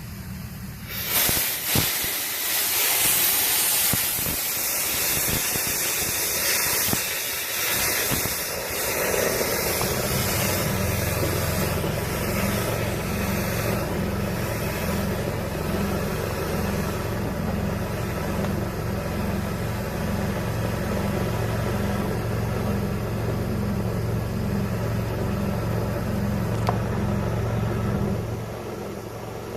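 Dryer vent cleaning equipment forcing air through the vent: a loud rush of hissing air starts about a second in. From about ten seconds a motor runs steadily with a low hum under the airflow, and it stops near the end.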